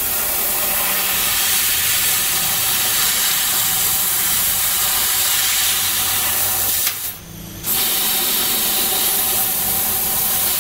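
Dragon CNC DLM-1390 CO2 laser cutting machine cutting steel sheet: a loud, steady hiss of the assist gas jetting from the cutting nozzle. It drops out for under a second about seven seconds in, then starts again.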